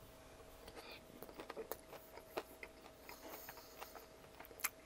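Quiet close-miked chewing of a mouthful of saucy pasta and breaded chicken: scattered soft, wet mouth clicks, with a sharper click near the end.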